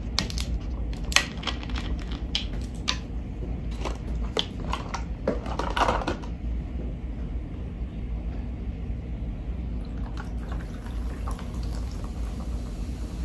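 Plastic two-liter soda bottle being handled, with sharp clicks and crackles of the plastic and cap in the first few seconds and a brief hiss about six seconds in. Near the end soda is poured from it into a plastic cup. A steady low hum runs underneath.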